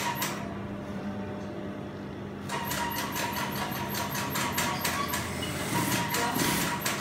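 Brother industrial straight-stitch sewing machine stitching in a rapid, even rhythm of needle strokes. It stops about a third of a second in while the fabric is repositioned, then starts sewing again about two and a half seconds in.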